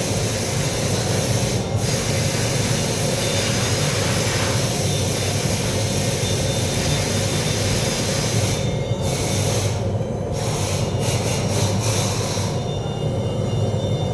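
Electric arc welding: a steady crackling hiss from the arc, broken off briefly several times in the second half.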